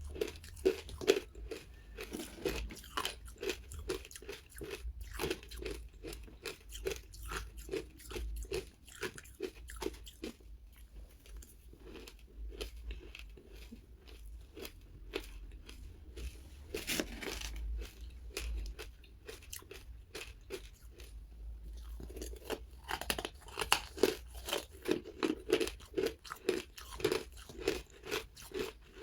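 Close crunching and chewing of powdery frozen ice dusted with matcha powder, a dense crackle of small crunches. Near the end it settles into a regular chewing rhythm of about two to three bites a second.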